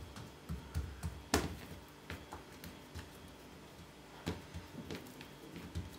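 Hands handling balls of dough on a worktop: a few soft taps and knocks, the clearest about a second and a half in and again just after four seconds.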